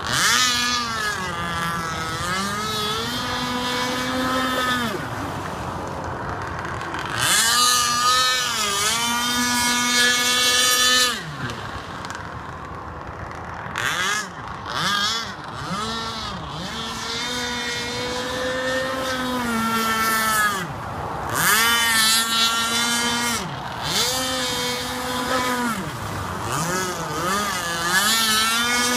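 Pro Boat Shockwave 55 RC speedboat's 26cc two-stroke petrol engine, revving up and down as the throttle is opened and closed. It makes several runs at high revs, the loudest about eight to eleven seconds in and again around twenty-two seconds.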